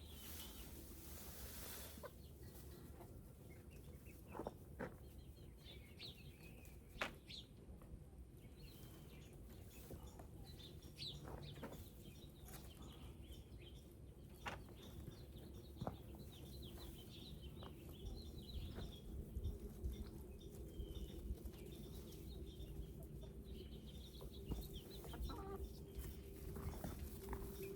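Hens clucking softly and intermittently, with a few sharp clicks in between.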